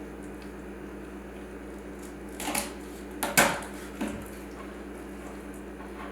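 Knife splitting a raw chicken breast down the middle on a cutting board: three short knocks with wet squishing about two and a half to four seconds in, the middle one loudest, over a steady low hum.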